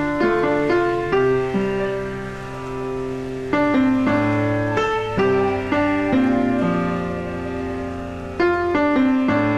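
Background piano music: slow chords and melody notes struck and left to ring and fade, with fresh notes coming in every second or so.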